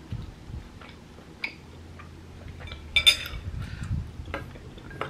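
Eating utensils clinking against a ceramic bowl: a few light clicks, a sharp tick about one and a half seconds in, and a louder ringing clink about three seconds in.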